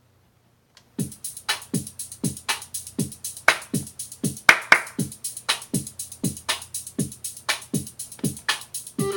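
Electronic drum beat played on ROLI Blocks through the Noise app. After about a second of silence a steady pattern starts, with kick hits falling in pitch about twice a second and crisp high ticks between them. Pitched synth notes come in right at the end.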